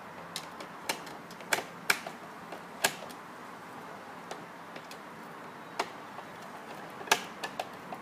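Phillips screwdriver tightening the smart lock's mounting screws, with a dozen or so irregular sharp clicks and ticks of metal on metal. The loudest clicks cluster in the first three seconds and come again near the end.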